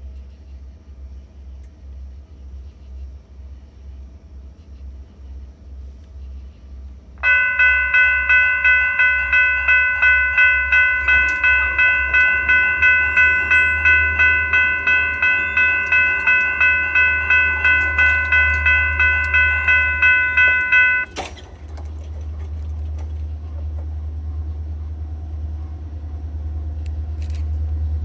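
A railway bell rings loudly and steadily at about three strokes a second for roughly fourteen seconds, then cuts off abruptly. A low engine rumble runs underneath and grows louder after the bell stops.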